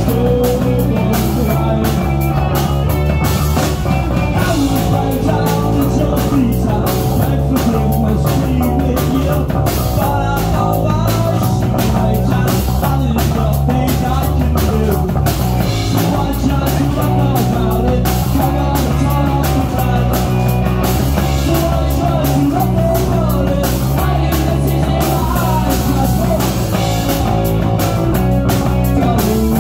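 Live amplified rock band playing steadily: electric guitar and drum kit, with a woman singing.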